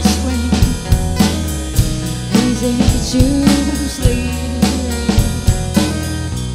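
Live pop-rock music: a woman singing over strummed acoustic guitar and a drum kit with a steady beat. Near the end the voice and drums stop, leaving the guitar ringing.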